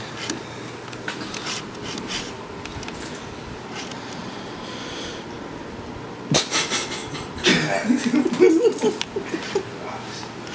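Rustling cloth and handling of a plastic powder bottle as baby powder is shaken into a pillowcase, with a sudden loud rustle about six seconds in. A breathy, muffled voice follows for a couple of seconds.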